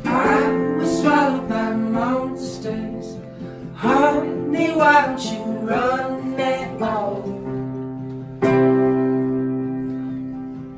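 Song intro: strummed acoustic guitar with a wordless sung melody over it. The melody stops about seven and a half seconds in, and a fresh chord rings out and fades near the end.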